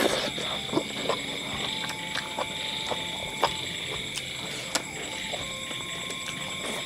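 Close-up mouth sounds of eating chicken by hand: chewing, lip smacks and short wet clicks as meat is sucked and bitten off the bones. A steady high-pitched chorus of night creatures runs underneath.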